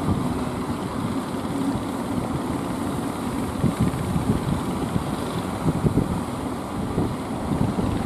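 Wind buffeting the microphone over breaking surf, with an outrigger fishing boat's engine running beneath.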